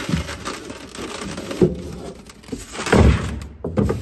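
Packaging being handled as a cardboard box is opened and its polystyrene foam inner box pulled out: a few sharp knocks, then a loud rough scrape about three seconds in, and another shorter scrape near the end.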